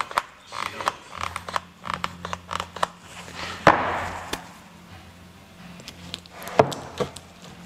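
Small clicks, taps and knocks of handling as a hot glue gun glues a taped plastic strip to the edge of a fibreglass panel and the strip is pressed into place. There is one sharper click with a short hiss after it midway, and two more knocks near the end, over a faint low hum.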